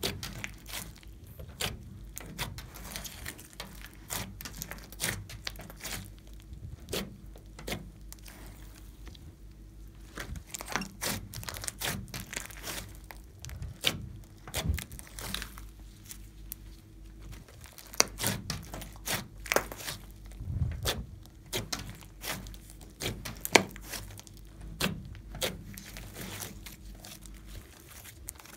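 Glossy slime being mixed and squished, giving irregular sticky clicks and small pops of trapped air over a faint steady hum.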